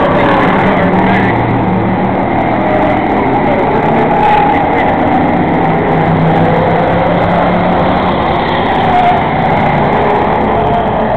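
Several enduro race cars, stock street-car bodies, running at race speed past the viewer. Their engines overlap in a loud, steady drone that swells a little as cars go by.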